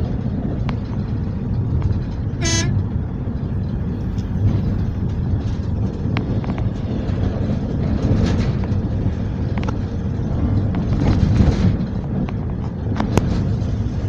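Steady low rumble of a vehicle driving along a narrow road, with scattered light clicks and rattles, and one short horn toot about two and a half seconds in.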